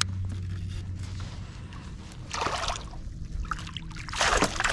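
Water splashing and dripping at the side of a kayak, with two short splashes, one about two seconds in and one near the end.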